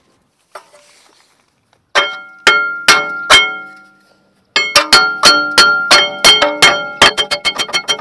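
Hammer blows on the rear brake disc of an Audi A6 C7, the metal disc ringing with a clear bell-like tone after each strike as it is knocked loose from a rust-seized hub. Four blows come about half a second apart, then after a pause a run of steady strikes that speeds up near the end.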